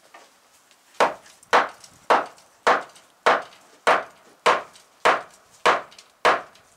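A hammer striking wood in a steady series of about eleven blows, a little over half a second apart, starting about a second in.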